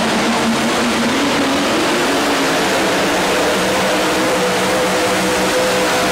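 Modified tractor-pulling vehicle's engine running at full power as it hauls a weight-transfer sled down a dirt track; its pitch climbs over the first couple of seconds, then holds steady.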